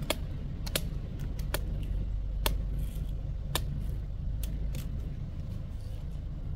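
A machete chopping into the husk of a tender coconut: a series of sharp chops, irregularly spaced about half a second to a second apart, over a steady low rumble.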